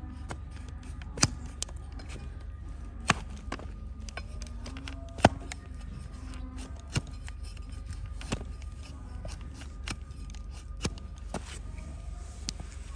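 Hard donkey hoof horn being pared with a trimmer's blade: sharp, crisp cracks every second or two, the loudest about five seconds in, over a steady low hum.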